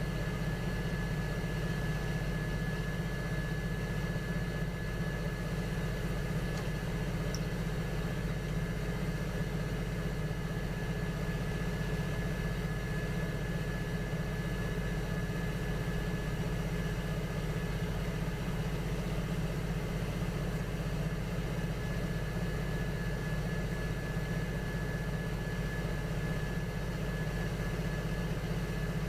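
Electric potter's wheel motor running at a steady speed, a constant hum with a faint high whine over it.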